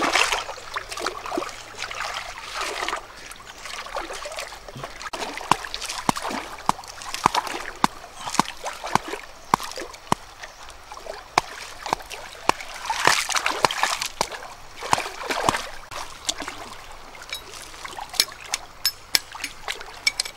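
Water splashing and trickling in many small, irregular splashes, with sharp drips and clicks scattered throughout.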